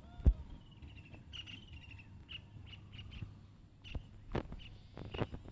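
Birds chirping and calling: repeated short chirps and a few arching whistled notes. Several sharp knocks are mixed in; the loudest comes just after the start, and there are two more near the end.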